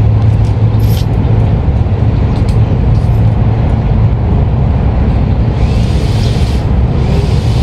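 Steady low mechanical hum of a motor running without pause, with a rough rumble beneath it.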